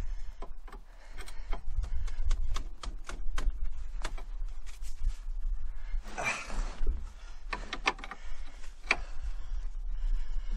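Irregular metallic clicks and clinks of a wrench being worked on a minivan's tie rod, backing off the jam nut to free the outer tie rod end. A brief scuffing noise comes about six seconds in.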